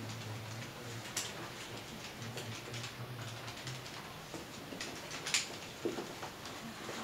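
A few scattered light clicks and taps, the sharpest about a second in and past five seconds in, over a low hum that comes and goes.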